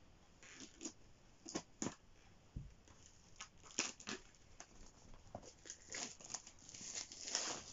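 Packaging of a laser measure being opened by hand: irregular crinkling, rustling and tearing of the box and its wrapping, with a longer rustle near the end.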